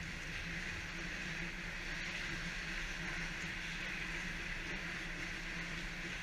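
Steady ice-arena ambience: a constant hum and hiss, with a few faint clicks as play moves toward the net.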